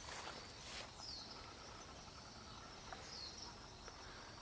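Quiet outdoor ambience: a bird repeats a short, high, falling call about every two seconds over a faint steady insect hiss, with a brief rustle at the start.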